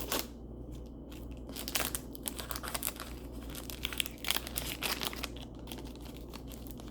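Crinkly wrapper of a trading card pack being handled and torn open, with irregular crackling and tearing throughout.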